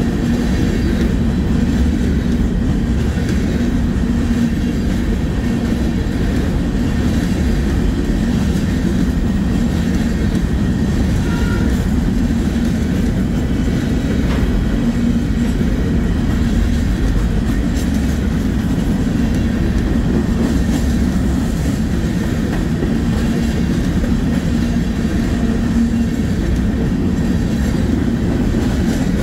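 Norfolk Southern manifest freight train rolling past, a steady rumble of cars on the rails that holds the same level throughout.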